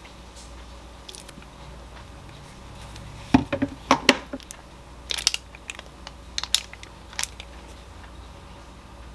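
Small kitchen handling sounds: a wooden spoon knocking and clicking against containers as it is filled and brought to a glass mug. A quick run of the loudest knocks comes about three and a half seconds in, followed by lighter scattered clicks over the next few seconds.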